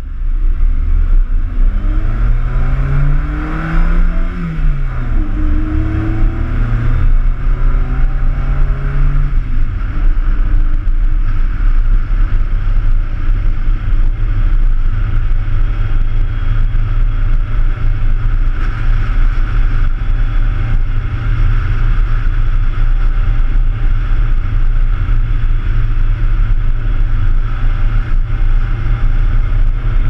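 Car engine pulling uphill: its note climbs for about two seconds, drops sharply as it shifts up, holds steady until about ten seconds in, then sinks under the noise. A heavy steady rumble of wind and road noise on the bonnet-mounted camera runs throughout and is the loudest sound.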